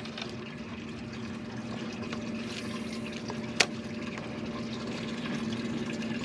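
Steady hum of a small motor over a wash of water noise, with one sharp click a little past halfway.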